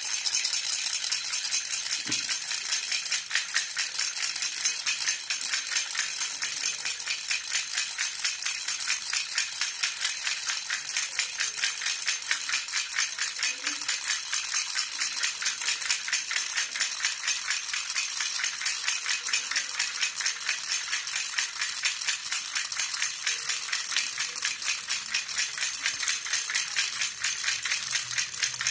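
Jhunjhuna baby rattle shaken steadily and quickly, a continuous bright jingling rattle.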